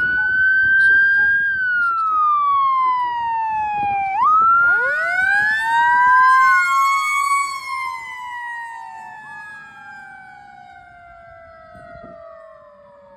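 Sirens of responding emergency vehicles: a siren wailing slowly up and down. About four and a half seconds in, a second siren winds up from a low pitch and then slowly winds down. The sirens fade steadily as the vehicles move away.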